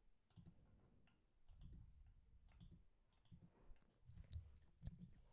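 Faint, scattered clicks of a computer keyboard and mouse while semicolons are deleted in a code editor.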